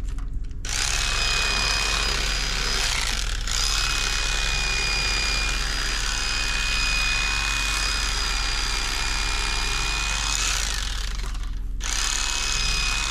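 Electric fillet knife running with a buzzing whine as it cuts through fish fillets. It starts just under a second in, drops out briefly about three and a half seconds in, and again near the end.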